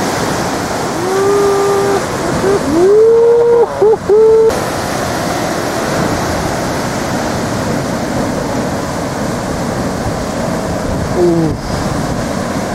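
Steady rush of heavy surf breaking, with wind on the microphone. About a second in, a person lets out a few long drawn-out, rising shouts at a surfer's ride, and gives another short call near the end.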